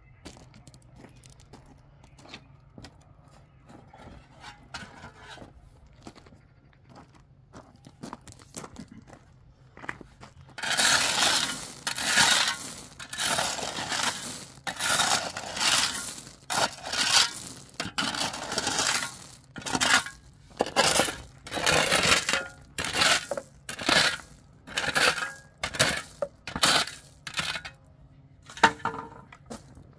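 Rhythmic scraping strokes of a tool working gritty soil and stones, about one a second, starting about ten seconds in and stopping shortly before the end; faint scattered clinks before them.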